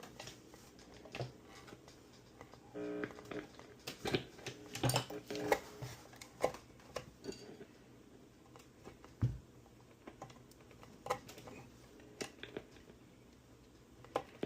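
Scattered light clicks, taps and knocks of small parts and tools being handled during guitar wiring work, with a short pitched tone about three seconds in.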